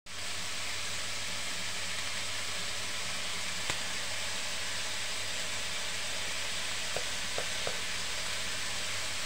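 Hot oil sizzling steadily in a dark metal karahi, over a low steady hum. One sharp click sounds a little over a third of the way in, and a few faint ticks come near the end.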